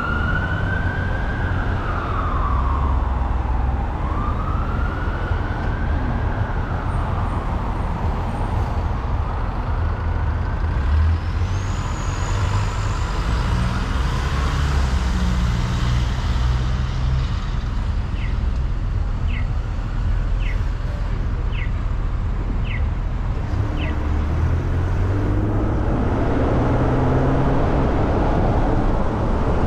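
An emergency vehicle's siren wailing, rising and falling in pitch, then fading out over the first several seconds, above the steady low rumble of the car and traffic. Later come six short light ticks about a second apart.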